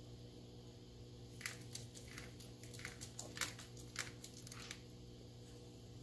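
A conure clambering up a window frame: a run of about a dozen faint, dry scratches and clicks from its grip on the frame, starting about a second and a half in and lasting about three seconds.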